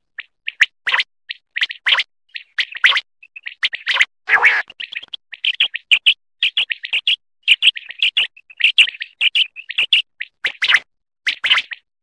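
Common quail calling: a rapid run of short, high chirps in quick clusters, with one longer, rougher note about four seconds in.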